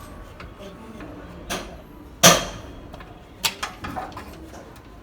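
Metal knocks from tools on a car's drive shaft and CV joint. One lighter knock comes first, then the loudest a little over two seconds in, ringing briefly, then three or four lighter knocks close together.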